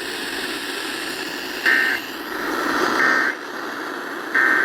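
Three short bursts of Emergency Alert System end-of-message data tones, the warbling digital code that signals the end of the alert, each about a third of a second long and evenly spaced a little over a second apart. A steady hiss runs underneath.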